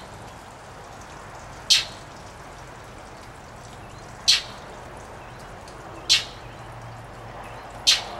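Blue jay giving four short, harsh calls, roughly two seconds apart.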